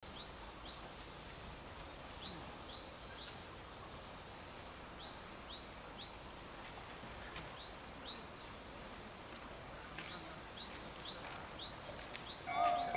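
Birds chirping in short, repeated calls over faint outdoor background noise. Near the end, a Japanese level-crossing warning bell starts ringing with a steady electronic tone, as the crossing begins to signal an approaching train.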